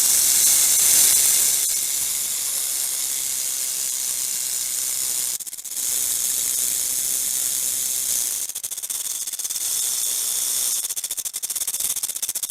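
Snake hissing: long, steady hisses with a brief break about five and a half seconds in, the hiss fluttering rapidly in the later part.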